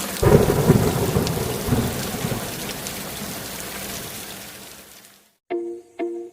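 Thunderstorm: steady rain with a loud rumble of thunder starting just after the beginning, the whole fading out over about five seconds. Near the end music starts, with short repeated notes about twice a second.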